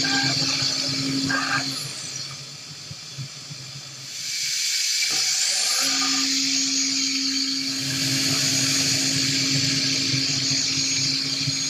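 Five-axis CNC machining centre milling, with a steady hum from the cutting and a constant hiss over it. The hum drops out about two seconds in, the whole sound goes quieter, and the hum comes back about six seconds in.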